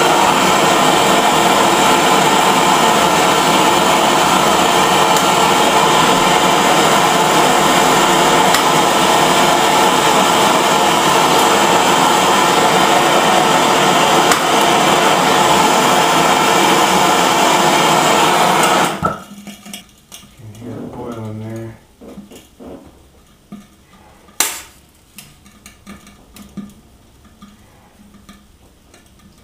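MAP gas hand torch flame burning steadily with a loud rushing hiss, heating a brass valve fitting to sweat-solder copper pipe into it. The torch shuts off abruptly about 19 seconds in, leaving light metallic clicks and taps and one sharp knock a few seconds later.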